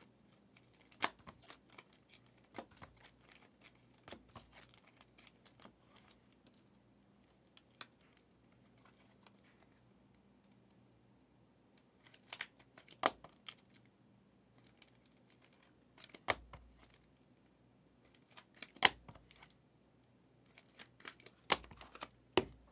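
Sports card box and pack wrapping torn and crinkled open by hand, with scattered sharp clicks and a couple of dull thumps from the boxes being handled.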